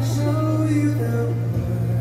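Nighttime castle show soundtrack music playing over the park's loudspeakers, with sustained notes over a strong steady low hum.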